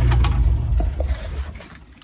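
A 4-ton mini excavator's diesel engine shutting off: its steady idle cuts out about half a second in and runs down to a stop over the next second, with a few sharp clicks and knocks at the start and as it dies.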